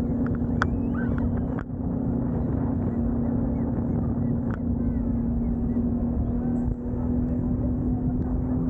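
Boat engine running steadily: a constant low hum over rumble, with a few faint short chirps and clicks in the first couple of seconds.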